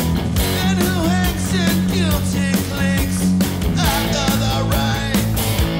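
A hard rock band playing live: a male lead vocal over distorted electric guitars, bass guitar and a steady drum beat.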